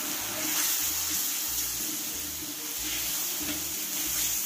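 Chopped salted mustard green stems sizzling in a wok of hot oil, spice paste and a little water: a steady hiss, as a metal spatula stirs them.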